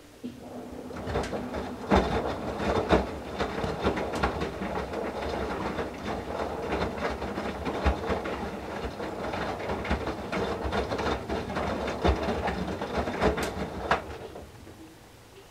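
Whirlpool Duet WFW97HEDC front-loading washer's direct-drive drum turning through one main-wash tumble. Wet towels lift and drop with water splashing and occasional knocks. The tumble starts just after the beginning and stops about a second and a half before the end.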